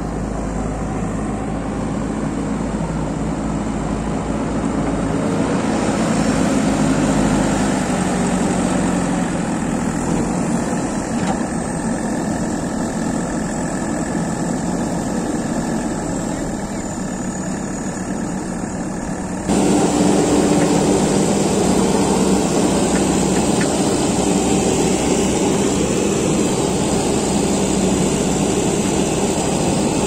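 JCB 3DX backhoe loader's diesel engine running steadily under load as the machine works loose earth. The sound steps up abruptly about two-thirds of the way through.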